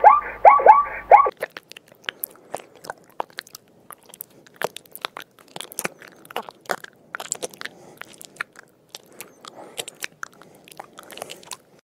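Land snail feeding on a leaf: a long run of small, crisp, irregular crunching clicks as it rasps and chews, closely miked. In the first second a quick series of short pitched animal calls cuts off.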